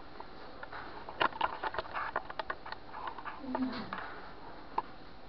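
Handling noise close to the microphone: a quick run of small clicks, taps and rustles from hands and skin against the camera, busiest between one and three seconds in. A little after three and a half seconds there is a short low vocal murmur.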